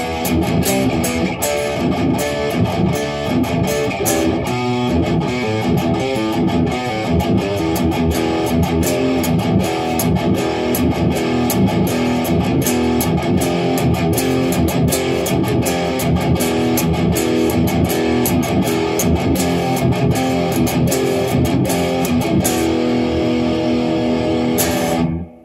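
Electric guitar played with fast, continuous picked notes. Near the end the rapid picking stops and a final held note rings on, then cuts off sharply.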